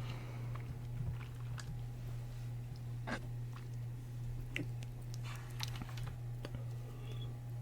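Steady low hum of the running computer, with scattered light clicks and taps, a few of them keyboard keys.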